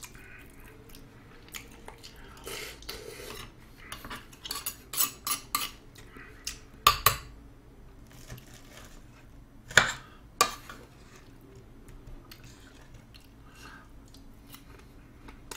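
A metal spoon and fork clinking and scraping against plates, a steel tray and a bowl during a meal. There is a run of light clinks about four seconds in, and a few louder knocks near seven and ten seconds.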